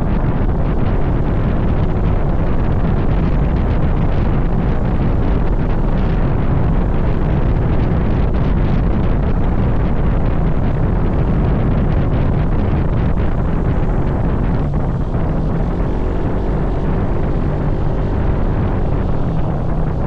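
Steady wind buffeting the microphone on a moving ride, over the low, even noise of the vehicle and road.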